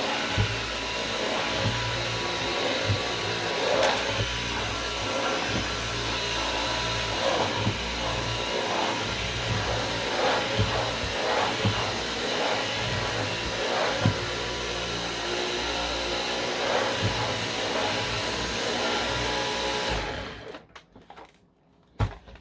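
Dyson V10 Animal cordless stick vacuum running steadily with a high-pitched motor whine, while it is not sucking very well, which the owner puts down to a clogged filter. It switches off about 20 seconds in, followed by a single knock near the end.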